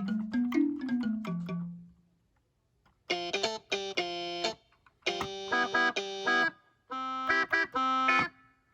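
Akai MPK Mini Play MK3 keyboard playing one of its built-in guitar-like sounds: a quick run of single notes, then three chords, each held about a second and a half with a short silence between.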